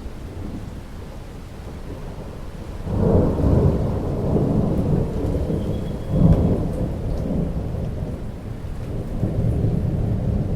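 Rain falling steadily with a deep rumble of thunder that swells about three seconds in, peaks twice, and keeps rolling on.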